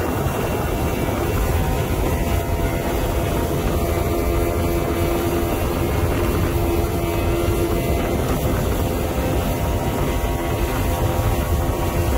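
Outboard motor of a 19-foot Robalo boat running steadily at speed, a constant drone over the rush of water churned up in the wake.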